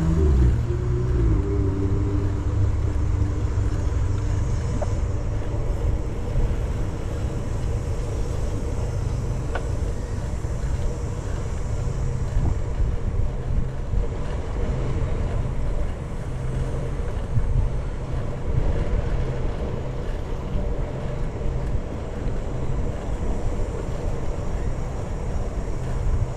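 Steady low rumble of wind buffeting the camera's microphone while riding a bicycle, with a faint steady hum underneath.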